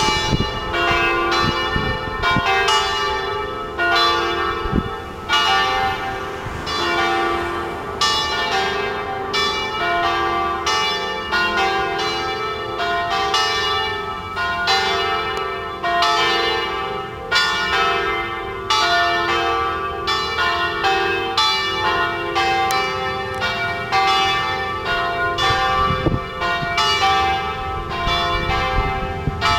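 Loud church bells playing a tune: a continuous run of struck bell notes, each ringing on and overlapping the next.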